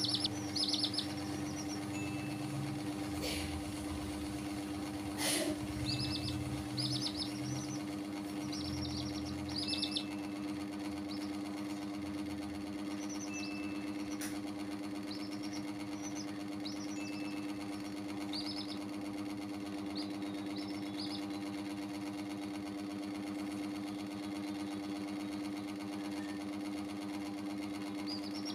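Baby chicks peeping in short, high chirps, in clusters near the start and between about six and ten seconds in, sparser later, over a steady mechanical hum. Two brief knocks about three and five seconds in.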